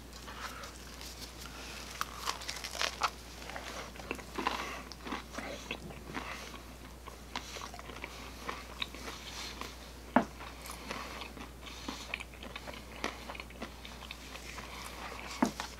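Crisp pizza crust crunching and crackling close to the microphone, in scattered sharp clicks, over a low steady hum.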